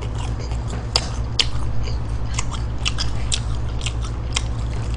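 A person chewing a mouthful of McDonald's fast food close to the microphone: irregular wet mouth clicks and smacks, several a second, over a steady low hum.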